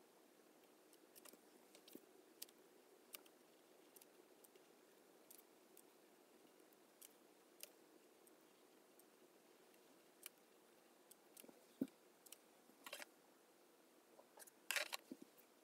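Near silence with faint scattered ticks and light scratches of a fine-tip ink pen working on watercolour paper, and a few louder short scrapes near the end.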